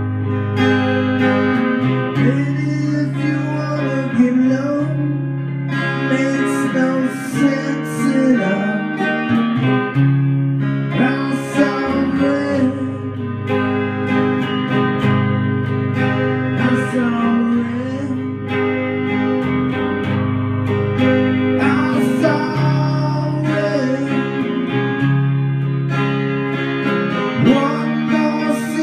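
A small band playing a song live, with guitars to the fore.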